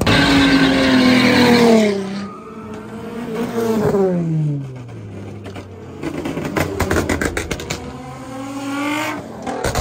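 Car engine revving hard with tyre screech from a drift on asphalt, the engine note falling away twice, with a patch of rapid crackling in the middle, then rising again near the end.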